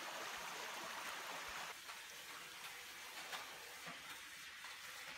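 Shallow stream running over stones. About two seconds in it gives way to a quieter wash of running water with a few light clinks.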